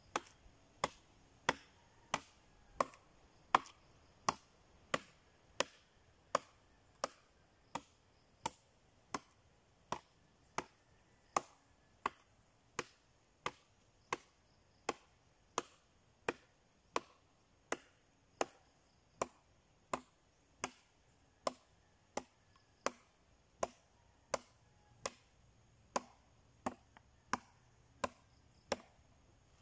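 Machete (bolo) chopping into rotting logs on the ground: a steady run of sharp blows, about three every two seconds.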